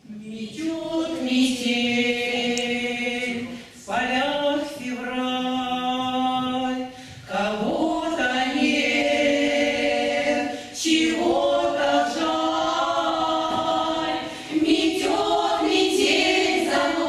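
Choir singing a slow song in long held notes, in phrases that break off and start anew roughly every three to four seconds.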